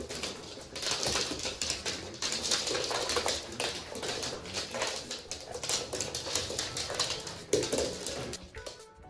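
Korean Jindo puppies and an adult dog play-wrestling: a busy clatter of claws scrabbling and skittering on a wooden floor, with a few brief puppy vocal sounds mixed in.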